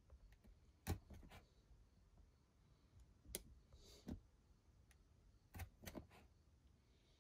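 Faint sharp clicks of a hobby knife blade cutting thin styrene sheet against a hard work surface, in three small groups of two or three.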